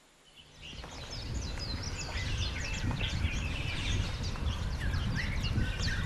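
A chorus of many small birds chirping, with quick high falling notes over one another, over a low rumble. It fades in about a second in.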